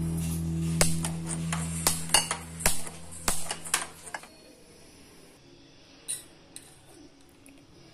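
Kitchen utensils clinking and knocking against cookware: a quick run of sharp knocks over the first few seconds, then two more later on. Background music fades out at the start.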